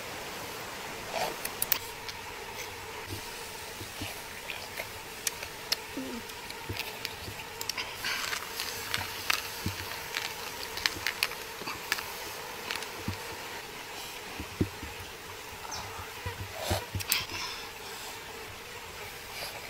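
Hands handling blood cockle shells and food, with frequent small sharp clicks and taps of shell against shell and stone, over a steady background hiss.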